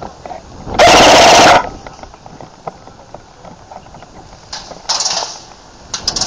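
Airsoft rifle firing full-auto bursts: a very loud burst of under a second, about a second in, then a weaker burst around five seconds in.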